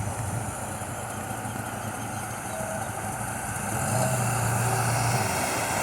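A motor vehicle's engine running with a low hum that grows louder about four seconds in, over a steady rushing noise.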